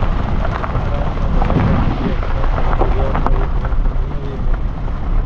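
Heavy wind buffeting on a camera mounted outside a moving car, over the rumble of the car on a rough dirt track.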